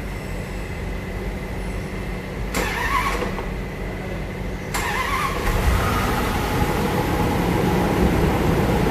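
Range Rover engine being started: a short burst of sound about two and a half seconds in, then the engine catches near five seconds in on the first attempt and runs on steadily. This is its first start after the cylinder head was refitted with a new head gasket, water pump and thermostat.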